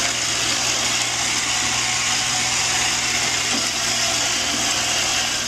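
Robot vacuum cleaner running: a steady whirring motor and brush noise with a low hum under it.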